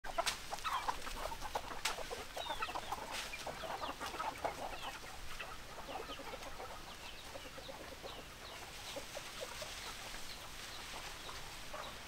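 A flock of chickens clucking in many short, quick calls, busiest in the first few seconds, with a few sharp clicks among them.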